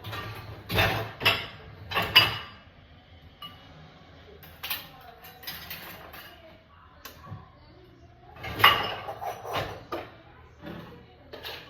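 Dishes and cutlery clinking and clattering as they are loaded into a dishwasher, in irregular bursts of knocks with quieter rattling between.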